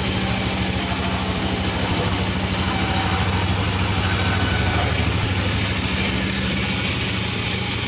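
Panda36 sawmill running steadily with a low engine hum, with a brief change in its sound about five to six seconds in.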